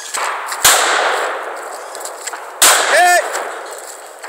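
Two gunshots about two seconds apart, the first about half a second in, each tailing off with an echo. A short ringing tone that rises and falls follows about half a second after the second shot.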